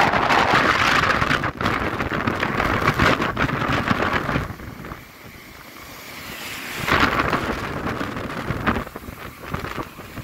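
Rough, stormy sea waves crashing against a concrete sea wall and breaking into surf, a loud continuous rush of water. The crashing eases briefly around the middle, then another wave surges and breaks about seven seconds in.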